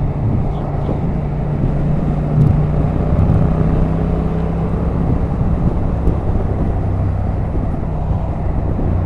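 Motorcycle cruising at motorway speed: a steady low engine drone under constant wind and road rush.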